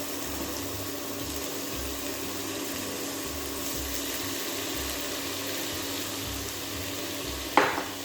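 Pieces of squid frying in hot olive oil in a pan, a steady sizzle. A single sharp knock comes near the end.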